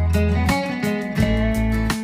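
Background music: a guitar-led track with a bass line and a steady beat.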